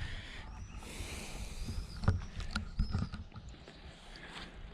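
Rustling with a few soft knocks, and faint short bird chirps in the background.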